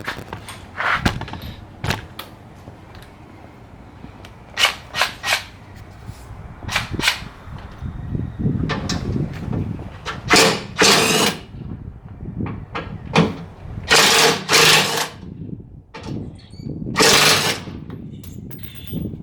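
Impact wrench run in bursts, loosening bolts. There are several short bursts in the first half, then longer bursts of about a second each in the second half.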